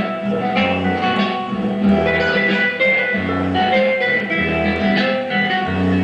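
Music played through a 1938 Zenith 9S324 nine-tube table radio, fed from a DVD into its line input and sounding from its 20 cm field-coil loudspeaker driven by a 6F6G output tube. A low bass note comes round about every second and a quarter.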